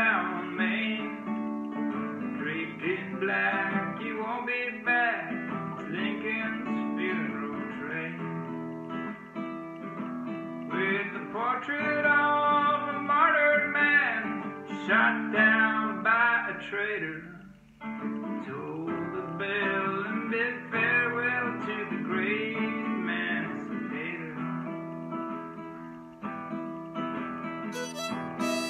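Classical guitar strummed as an old-time song accompaniment, breaking off briefly about eighteen seconds in. A fiddle comes in near the end.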